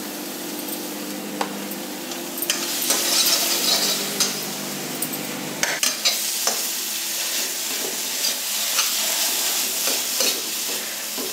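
Paneer and spice stuffing frying in oil in a metal kadhai while a slotted steel spoon stirs and scrapes it: a steady sizzle with the spoon clicking against the pan now and then. The sizzle grows louder about two and a half seconds in, once the stirring gets going. This is the stuffing being lightly roasted (bhuna).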